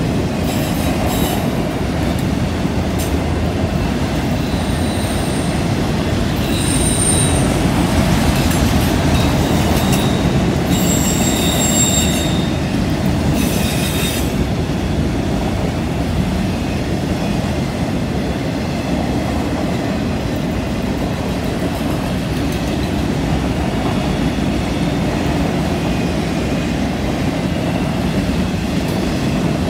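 Freight train's autorack cars rolling past, a steady rumble of steel wheels on rail. High squeals come and go in several bursts from a few seconds in until about halfway: wheel flanges squealing as the cars take the curve.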